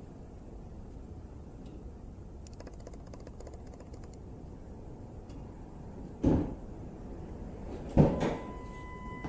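Two dull thumps about a second and a half apart, the second the louder, over a low steady hum. A steady high tone starts near the end.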